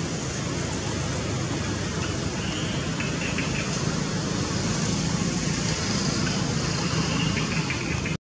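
Steady outdoor background rush, heaviest in the low range, with a few faint, short high chirps. It cuts off suddenly at the very end.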